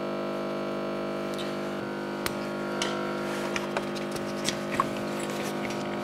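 Electric pressure brake bleeder humming steadily, with several light metallic clicks from about two seconds in as a wrench closes the brake caliper's bleed nipple and the bleed hose is handled.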